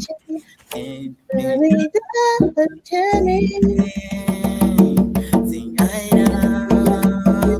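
Singing of a Mandarin pop love song, with musical accompaniment joining about three seconds in.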